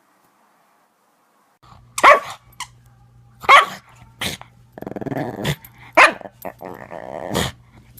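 A dog barking several times in loud, sharp barks, with rough growling between them, starting about two seconds in.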